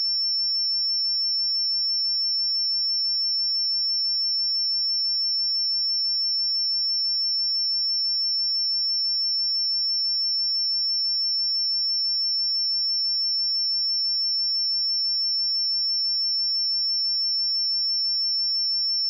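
A pure sine-wave test tone at 5397 Hz, a single high-pitched steady whistle-like tone held at constant loudness with no change in pitch.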